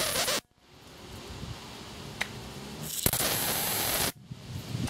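High-voltage arc from a 14-inch CRT TV's flyback, taken off the ultor cap, discharging across wire-mesh grids. One discharge cuts off suddenly about half a second in, and a second starts about three seconds in and stops abruptly a second later as the overloaded TV supply shuts down. A single sharp click falls between them.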